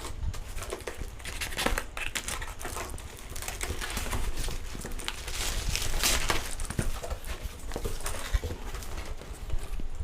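Courier packaging being opened by hand: a plastic wrapping cover crinkling and tearing off a cardboard box, with irregular rustles and small knocks throughout.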